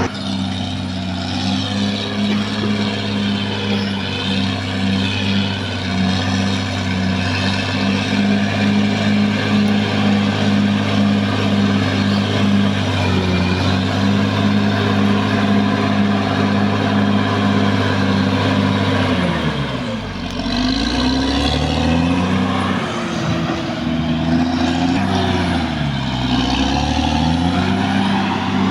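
Caterpillar D6R XL bulldozer's diesel engine running steadily at working speed. About twenty seconds in, its pitch drops and climbs back up twice as the engine speed dips and recovers.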